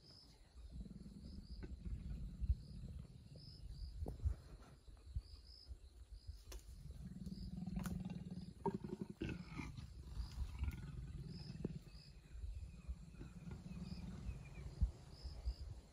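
Leopards growling low, in several separate stretches, as the female in oestrus courts a reluctant male.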